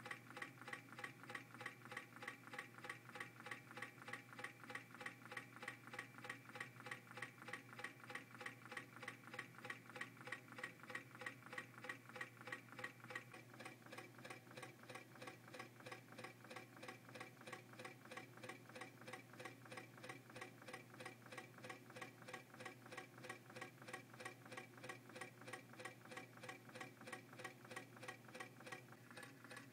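MM-5 coffee-cup Stirling engine running on hot water, its moving linkage ticking faintly in a fast, perfectly even rhythm of several ticks a second.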